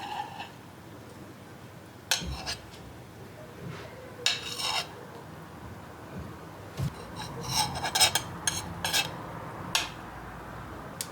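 Dishes and metal cutlery clinking and clattering as they are handled and set down: a string of separate sharp clinks, busiest in the second half.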